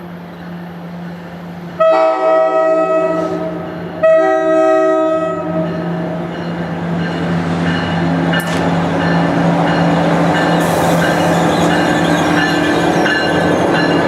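A locomotive's multi-note air horn, a five-chime K5LA, blows two long blasts about two and four seconds in. The train then draws closer with a steady engine hum and a growing rumble of wheels on the rails.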